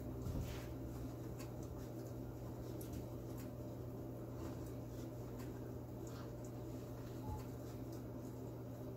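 A Belgian Malinois puppy nibbling treats from a hand: faint scattered clicks and small mouth sounds over a steady low hum.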